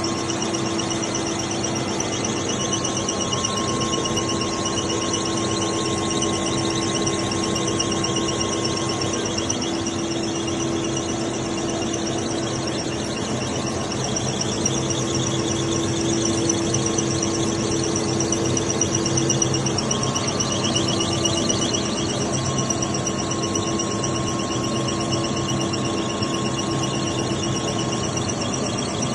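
Small fish-feed processing machinery running steadily, a constant whine over a continuous mechanical hum.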